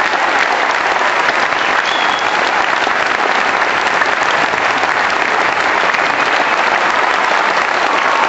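Theatre audience applauding, a dense and steady clapping.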